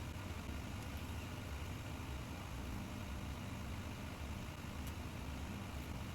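RevAir reverse hair dryer running steadily: a low, even motor hum with rushing airflow.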